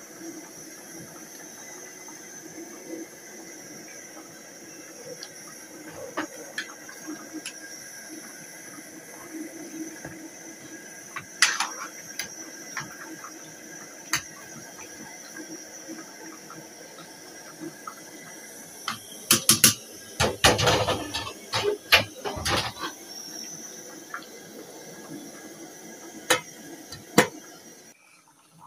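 Metal pot of chicken pepper soup and yam boiling on a gas burner with a steady hiss. A stirring utensil knocks against the pot a few times, then clatters against it repeatedly in a busy burst about two-thirds of the way through.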